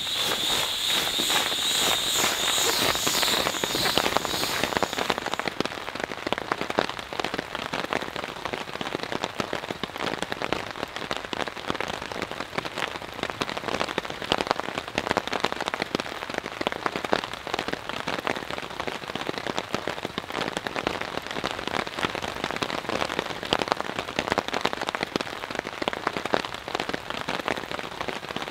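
Rain pattering on tent fabric: a dense, steady spatter of drops. A high, even tone sits over it for the first five seconds or so, then stops.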